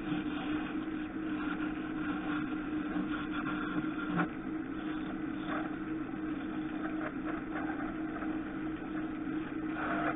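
Wood lathe running steadily with a turning chisel cutting a spinning ash workpiece: the motor's steady hum under the scraping hiss of the cut, with a brief tick about four seconds in.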